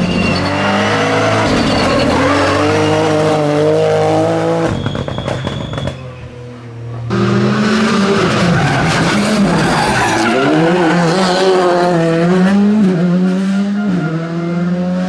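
Rally car engines revving hard through a tight tarmac bend, the pitch climbing and dropping with throttle and gear changes. The sound cuts off sharply about five seconds in, and another car's engine picks up about two seconds later.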